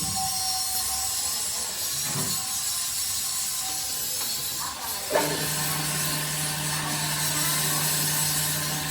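Workshop machinery noise with a steady hiss; a steady low hum starts suddenly about five seconds in.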